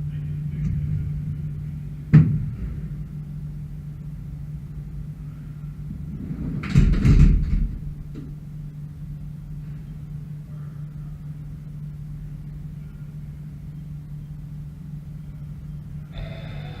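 Haas VF2 CNC mill running with a steady low hum. A sharp knock comes about two seconds in, and a brief louder rushing noise comes around seven seconds in.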